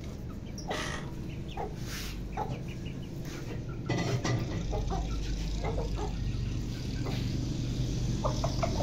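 Chickens clucking in short, scattered calls, with a quicker run of clucks near the end.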